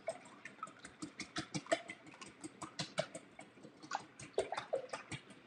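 Wire whisk beating raw eggs in a glass bowl: a quick, uneven run of light clicks and taps as the tines strike the bowl.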